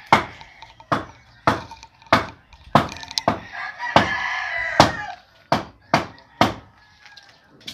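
A rooster crowing about halfway through, among roughly ten sharp chopping strikes, one every half second or so.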